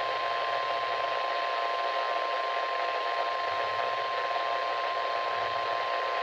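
NOAA Weather Radio 1050 Hz warning alarm tone, the signal that sets off weather alert receivers, holding one steady pitch throughout. It plays through a weather radio's speaker with static hiss behind it.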